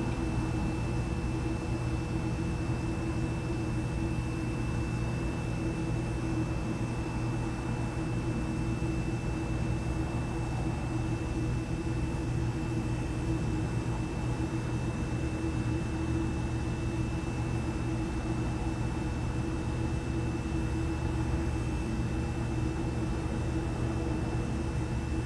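Steady electrical or machine hum and hiss with a thin, constant high whine, unchanging throughout.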